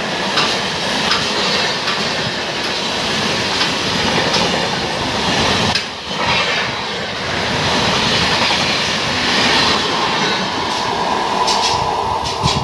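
Indian Railways express train coaches passing at speed close by: a steady rushing rumble with wheels clattering over the rail joints. The sound dips briefly about six seconds in, then runs on, with sharper clatter near the end.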